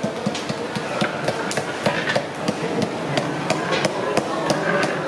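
Bread cubes deep-frying in a large pot of hot oil: a steady sizzle with sharp crackling pops scattered irregularly throughout.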